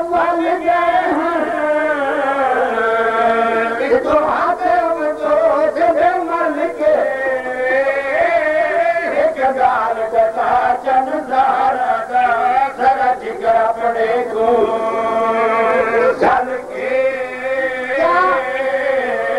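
A man's amplified voice chanting verse in long, melodic sung lines that bend up and down in pitch.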